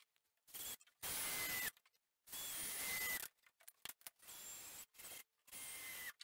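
Cordless drill driving screws into pine in several short runs, the motor whining up to speed and dropping in pitch at the end of each run.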